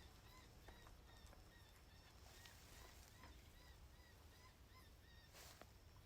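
Near silence with faint, evenly repeated short high chirps from a calling animal, about two or three a second, and a brief rustle near the end.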